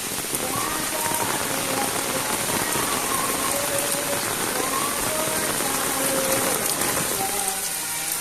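Rain falling steadily and evenly.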